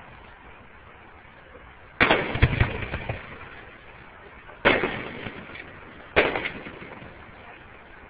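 Aerial fireworks shells bursting: sharp booms about two seconds in (followed half a second later by another), near the middle, and about six seconds in, each trailing off over a second or so with smaller pops.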